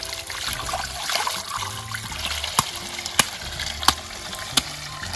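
Water from a garden hose trickling and splashing into a metal basin of water while a plucked rooster is washed in it. A few sharp clicks, evenly spaced, come through in the second half.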